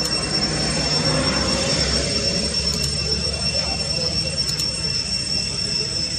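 Steady ambient noise: a continuous high-pitched whine over a low rumble, with a few faint clicks.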